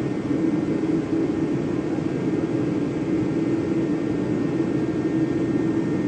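Old metal lathe running steadily, its motor and drive giving a continuous hum with a whirring hiss and no change in speed.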